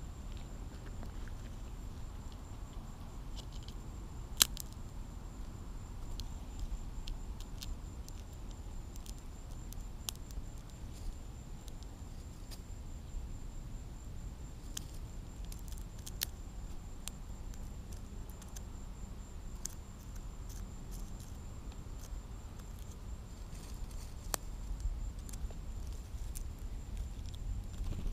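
Low wind rumble on the microphone with scattered small, sharp clicks as peanut shells are cracked open by hand, one click much louder about four seconds in.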